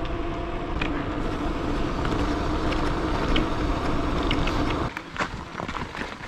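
Wind rushing over the microphone of a mountain bike being ridden at speed, with a steady hum under it. The rush drops away sharply about five seconds in, leaving a few light clicks.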